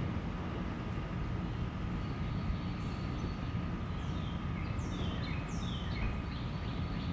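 Outdoor background noise: a steady low rumble with a thin steady whine. Starting about three seconds in, a bird gives a run of quick downward-sliding chirps.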